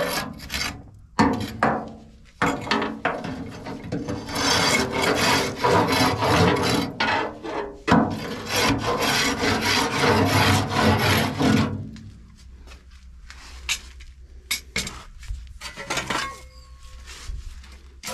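Metal scraping tool rasping against the inside of a solid-fuel central-heating boiler, scraping off built-up ash, in long back-and-forth stretches. After about twelve seconds it thins out to scattered short scrapes and knocks.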